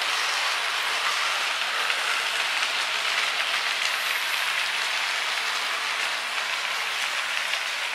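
Hornby OO gauge model trains running on the layout's track: Class 67 diesels and their coaches rolling past, a steady rush of motor and wheel-on-rail noise.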